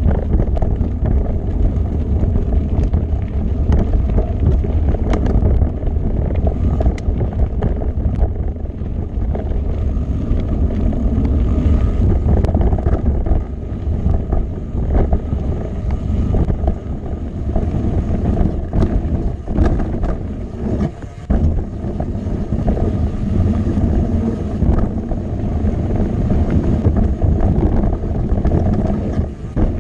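Wind buffeting the microphone of a mountain bike's ride camera, over the rumble of knobby tyres rolling across gravel and rock, with frequent short rattles and knocks from the bike on the rough trail.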